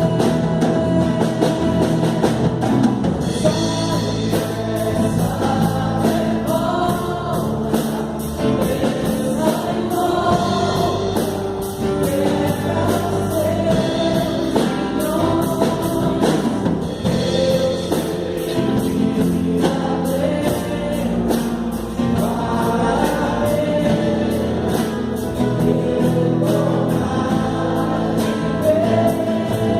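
A group singing a Christian song, accompanied by acoustic guitars.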